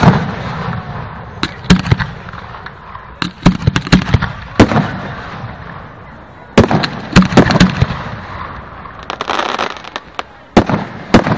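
Fireworks shells bursting overhead in clusters of sharp, loud bangs, with a crackling hiss between bursts. Several bangs land close together around a second and a half in, again around three and a half seconds in, between about six and a half and seven and a half seconds, and near the end.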